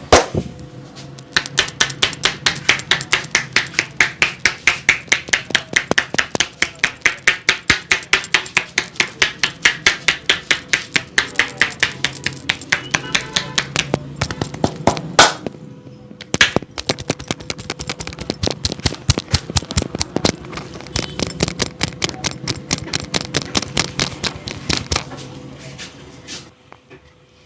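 Rapid, rhythmic hand strikes of a percussive (tapotement) massage, about four to five slaps a second, breaking off briefly about halfway through before starting again.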